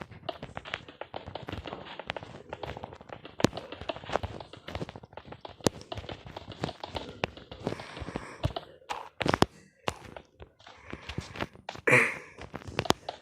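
Irregular taps, clicks and knocks, close together, with a louder knock about twelve seconds in.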